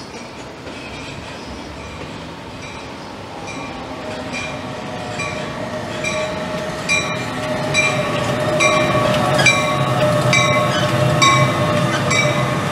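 NJ Transit electric commuter train approaching and passing along the Northeast Corridor tracks, getting steadily louder. It makes a rumble with a steady whine, and regular clicks about once a second as the wheels cross the rail joints.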